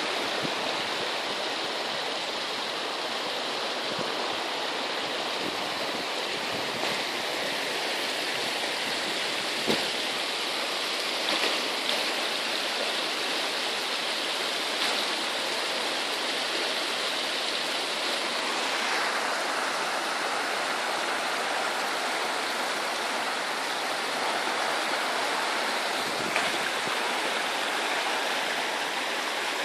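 Swollen brook in flood, bursting its banks: a steady rush of fast, churning floodwater.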